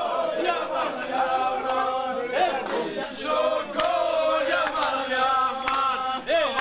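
A group of men singing a song together, with long, held notes.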